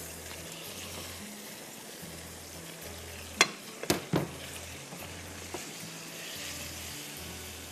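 Red chilli-ketchup sauce sizzling in a non-stick wok on a gas hob as it is stirred with a silicone spatula. Three sharp knocks about halfway through, louder than the sizzle, with a lighter one a little later.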